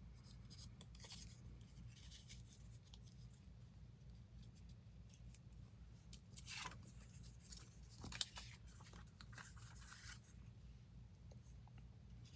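Faint rustling and scraping of paper pieces being shuffled and slid across a cutting mat, in short scattered bursts over a low steady hum.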